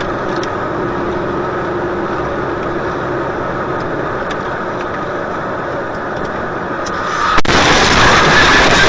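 A car on the road, recorded by a dashcam: steady engine and road noise. About seven seconds in there is a sudden sharp bang, and the noise becomes much louder.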